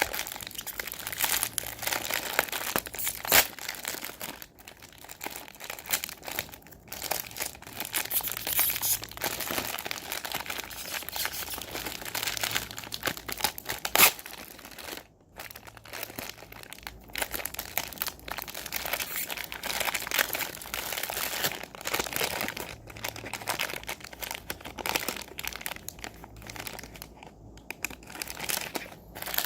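Plastic packaging crinkling and rustling continuously as it is handled and opened, with a few sharp clicks, the loudest near the middle.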